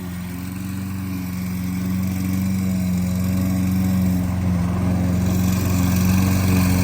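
Gas lawn mower engine running steadily while mowing grass, growing gradually louder as it comes closer.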